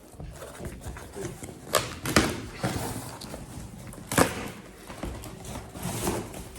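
Bedding packaging handled and unwrapped: rustling with several sharp crackles, the loudest about two seconds in and again about four seconds in.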